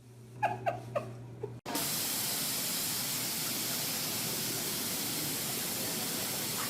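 A few short high-pitched squeaks, then, from about a second and a half in, a steady loud hissing noise like spraying air or water.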